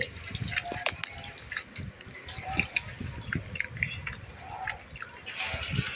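Wet squelching and scattered small clicks as a hand mixes sliced potatoes in thick pakora batter in a metal bowl.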